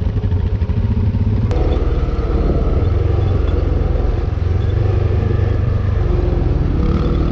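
ATV engine running, with a sharp click about a second and a half in, where the engine sound grows fuller.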